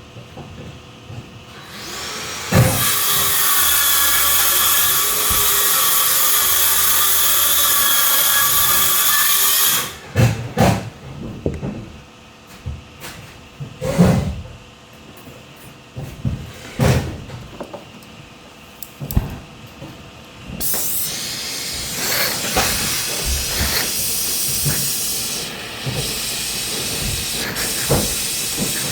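Work on air-conditioner refrigerant piping: a loud steady hiss for several seconds, then scattered knocks and clicks of tools on the pipework, and from about two-thirds of the way in another steady, quieter hiss.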